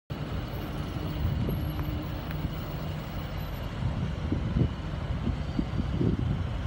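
Hyundai three-axle dump truck's diesel engine idling, a steady low rumble.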